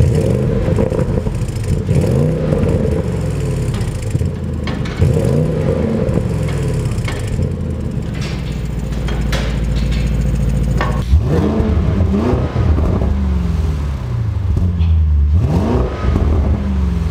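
2020 Audi S8's twin-turbo 4.0-litre V8 running through a full titanium aftermarket exhaust, idling with the revs blipped up and back down about four times.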